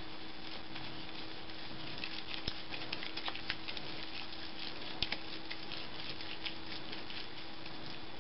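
Wet paper strips soaked in wheat paste being pressed and smoothed by hand around a ball, giving soft sticky crackles and small clicks, busiest in the middle of the stretch.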